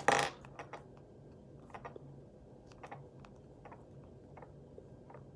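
A foam squishy toy squeezed and handled close to the microphone: a loud rustle right at the start, then faint scattered clicks and crackles.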